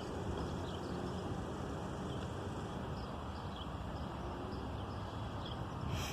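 Outdoor parking-lot ambience: a steady low rumble of distant traffic, with small birds giving short high chirps over and over. A brief sharp noise sounds near the end.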